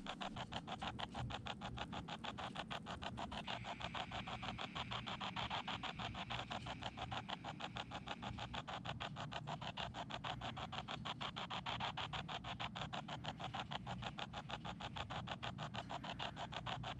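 Spirit box app on a phone sweeping through static: an even, rapid chopping of radio hiss, many pulses a second, running steadily.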